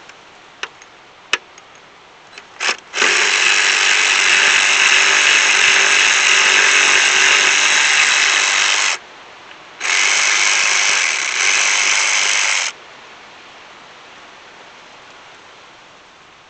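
Cordless electric ratchet running, backing out the 10 mm bolts that hold the charcoal canister. It makes a few light clicks, then one steady run of about six seconds and, after a short pause, a second run of about three seconds.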